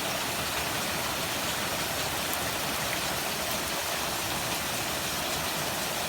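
Rain from Hurricane Harvey pouring steadily.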